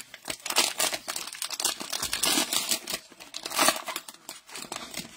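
Plastic cello-pack wrapper of a trading-card fat pack being torn open and crinkled by hand. A dense crackling rustle with a few louder tearing surges, dying down near the end.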